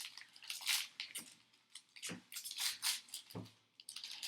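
Trading cards and pack wrappers being handled: a string of short rustling, sliding swishes, with two soft knocks about two and three and a half seconds in.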